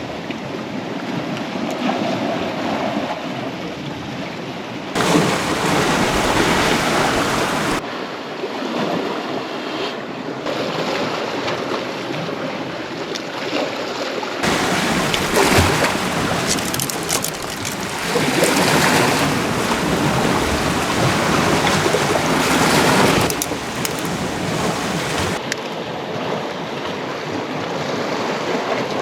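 Sea waves washing on the shore with wind buffeting the microphone, a steady rush that jumps abruptly in loudness several times, louder stretches alternating with quieter ones.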